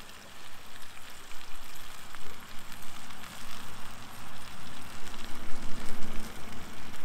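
Bacon-wrapped pork fillets sizzling in a skillet over an open wood fire: a steady spattering hiss with scattered small crackles.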